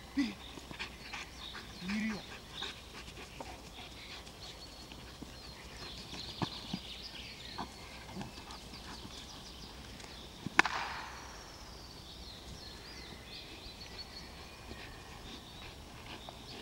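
Dog panting during bite-sleeve work, with one sharp crack partway through.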